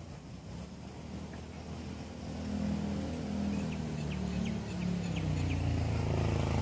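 An engine running, its pitch wavering, growing louder from about two seconds in, with a few faint ticks in the middle.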